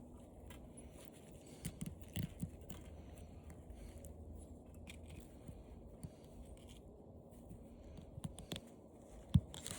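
Faint handling noises of copper wire from an old TV being twisted and untangled by hand: scattered small clicks and scrapes, a few sharper clicks about two seconds in and one louder click near the end.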